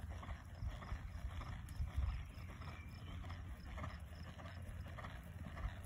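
Low, steady rumble of wind on the microphone, with faint, soft hoofbeats of a horse moving over grass about once a second.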